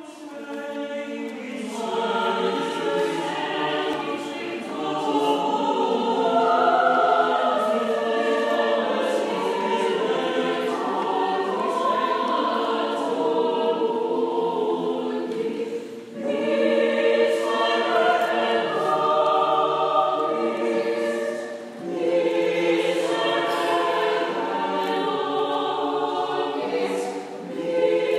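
Catholic school choir singing, fading in over the first couple of seconds, with brief breaks between phrases.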